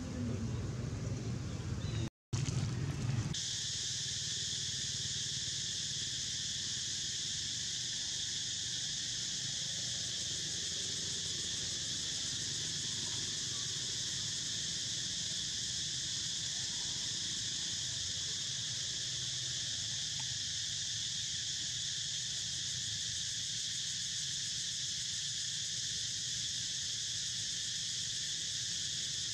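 Steady, unbroken high-pitched insect chorus that holds at an even level, with a low hum beneath it. It cuts out for a moment about two seconds in, then resumes.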